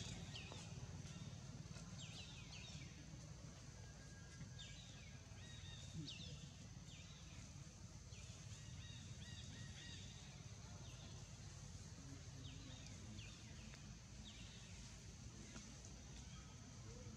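Faint outdoor ambience: a bird's short high chirps repeating every second or two over a steady high whine and a low rumble.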